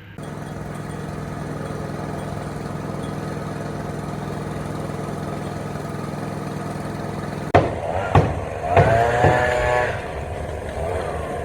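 An engine running steadily, then two sharp knocks about seven and a half seconds in, followed by a brief, loud, wavering squeal.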